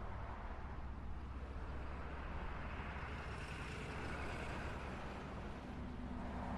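Road traffic: a steady low engine hum, with a vehicle going past about three to five seconds in.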